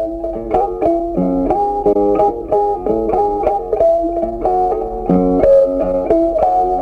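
Background music: a plucked guitar melody with quick, evenly picked notes.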